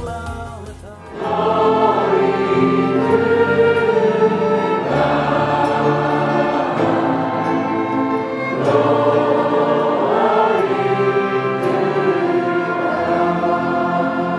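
Choir singing long held chords over musical backing. The music dips briefly at the start, then swells back in about a second in.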